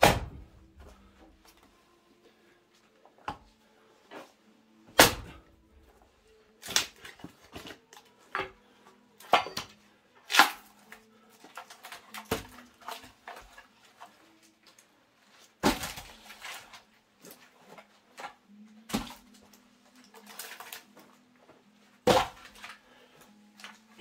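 Splitting axe striking larch rounds with sharp knocks, and split larch pieces clattering as they are tossed onto the woodpile, a knock every one to three seconds. A faint steady hum runs underneath.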